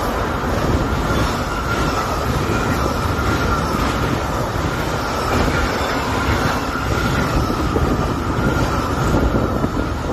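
Intermodal freight train of container and truck-trailer wagons rolling past at speed: a loud, steady rumble of wheels on rail with a high ringing tone held over it and faint rhythmic clicks from the wheels.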